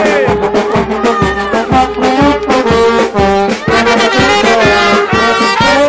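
A txaranga, a Basque street brass band, playing a lively tune close by: trombones and tuba carry the melody and bass over a steady low beat of about two thumps a second.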